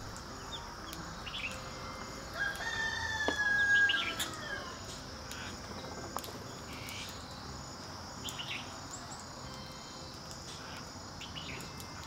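Forest birdsong ambience: scattered short bird chirps over a steady high insect drone, with one louder, longer drawn-out call from about two and a half to four and a half seconds in.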